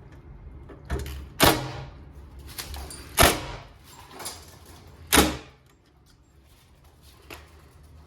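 A string of sharp knocks and clatters of hard objects, the three loudest spaced roughly two seconds apart, with a few lighter knocks between them, over a low steady hum.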